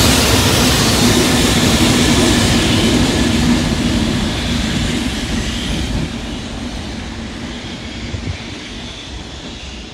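Two JR Freight electric locomotives, an EF210 hauling an EH500, running through at speed as a light-engine move: wheel-on-rail rumble with a steady low hum, loud as the EH500 passes and fading away from about four seconds in as they draw off.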